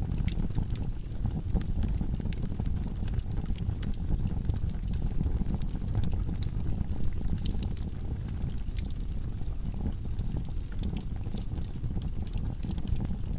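Log fire in a fireplace burning steadily, with a low rumble of flames and frequent irregular crackles and pops from the wood.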